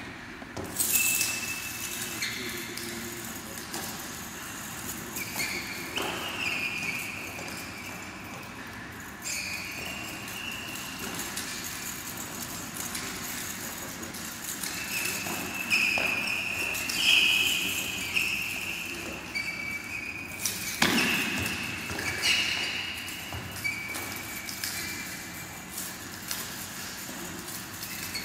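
A steel chain whip swung through a kung fu form, its links rattling, with several sharp cracks as it is snapped or strikes. Through it come repeated short high squeaks of shoes twisting and sliding on a sports-hall floor, echoing in the hall.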